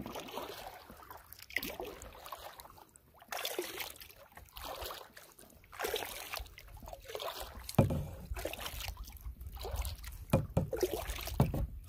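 Canoe paddle strokes: water swishing and dripping off the blade every second or two, with a sharp knock about two-thirds of the way through and a low rumble in the second half.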